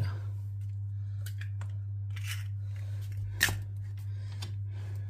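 An egg being cracked open and emptied into a Thermomix mixing bowl: a few light clicks and shell cracks, the sharpest about three and a half seconds in, over a steady low hum.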